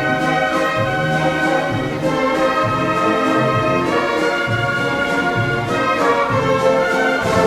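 An orchestra playing an old Russian waltz, with brass prominent over a repeating bass line.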